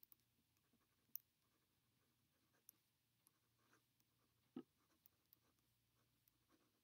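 Very faint pen writing on lined paper: a few soft scratches and ticks of the pen tip against the page amid near silence.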